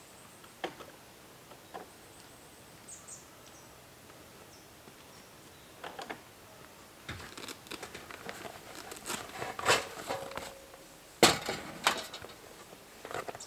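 A series of clicks, rustles and knocks, like things being handled at a campsite: a few scattered clicks at first, then a busy run from about halfway, with the loudest knock near the end. A few faint short high chirps sound in the first few seconds.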